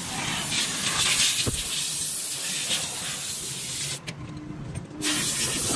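High-pressure spray hissing steadily, of the kind used to clean or paint engine parts during an engine restoration. It drops out briefly about four seconds in, then carries on.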